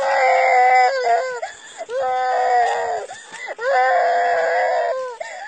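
A young child crying hard: three long drawn-out cries, each held about a second, with shorter broken cries between them.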